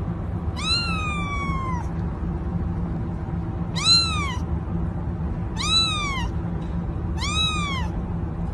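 Young ginger kitten meowing four times: a first, longer call that falls in pitch, then three shorter arched meows spaced about two seconds apart, over a steady low hum.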